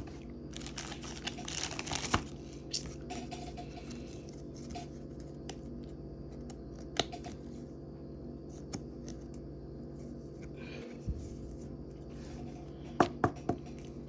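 Trading cards and booster-pack foil being handled: rustling and crinkling in the first couple of seconds, then scattered light clicks and taps, with three sharper clicks near the end, over a steady low hum.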